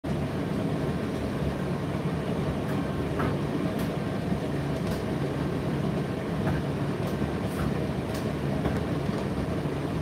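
Indesit IDC8T3 condenser tumble dryer running mid-cycle: a steady hum from its motor, fan and turning drum, with a few faint ticks scattered through.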